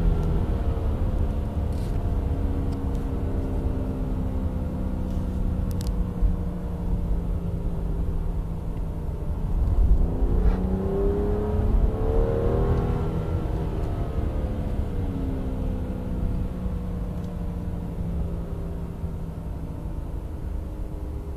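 BMW 535i (F10) turbocharged straight-six engine heard from inside the cabin, its pitch slowly falling as the car slows. Roughly halfway through the revs rise briefly, then fall away again, over a steady low road rumble.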